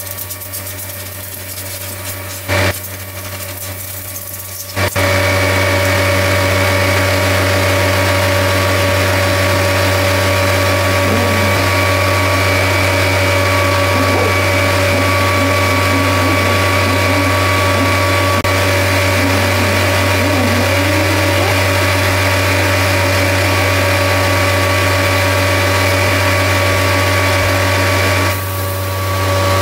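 A power tool's motor running steadily at one speed, starting up about five seconds in and dipping briefly near the end; before it, a low hum and two sharp clicks.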